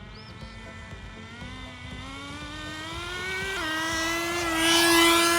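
Nitro engine of a Redcat Racing Lightning STR RC car, running rich, revving up as the car accelerates, its pitch climbing steadily. About three and a half seconds in the pitch dips suddenly, then holds high and grows loudest near the end as the car comes close.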